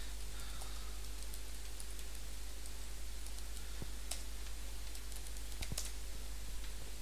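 Computer keyboard keystrokes as a terminal command and password are typed: a few scattered clicks, several close together near the end, over a steady background hiss and low hum.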